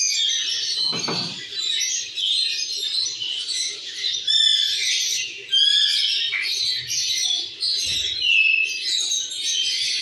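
Many small aviary birds chirping and twittering over one another, a steady chorus of short, high calls, with a soft thump about a second in and another later on.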